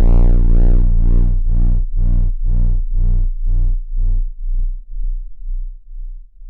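Heavily distorted, bass-heavy electronic sound effect that breaks into repeated pulsing echoes. The echoes grow shorter and fainter until they fade out about five seconds in.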